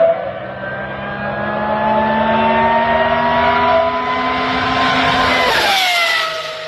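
Supercar engine and loud exhaust accelerating, its note rising slowly and steadily, then the pitch drops sharply about five and a half seconds in and settles lower.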